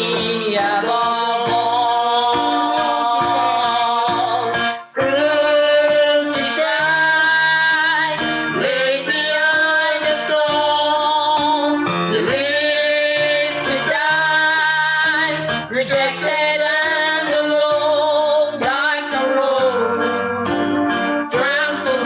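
Worship song playing: sung voices over instrumental accompaniment, with a brief break in the sound about five seconds in.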